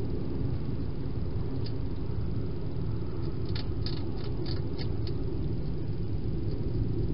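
Hedgehog eating dry food from a dish inside a plastic feeding station: a quick run of about six sharp crunching clicks about halfway through, over a steady low background rumble.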